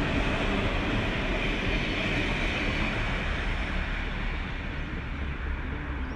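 Train passing: a steady rumble and rush of noise that eases off after about four seconds.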